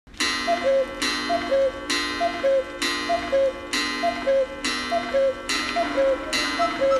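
A clock-like tick-tock: a higher tick and a lower tock repeating a little faster than once a second, each pair over a ringing chime that restarts with it.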